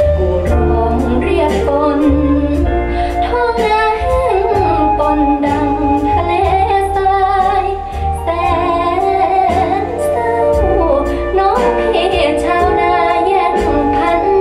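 A Thai song with a female lead vocal over a band backing with a strong bass line and steady drum beat, played back over Gauder Akustik Berlina RC-11 hi-end floor-standing loudspeakers.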